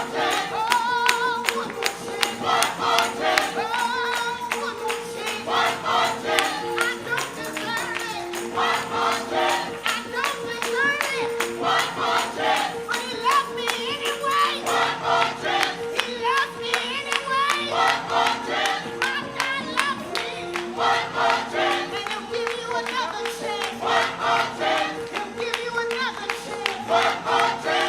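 Gospel choir singing over music with a steady beat and a steady held tone underneath.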